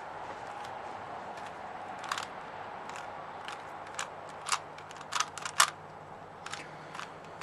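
A plastic Rubik's cube being twisted by hand: irregular sharp clicks as its layers turn, a few at a time, the loudest cluster about two thirds of the way through.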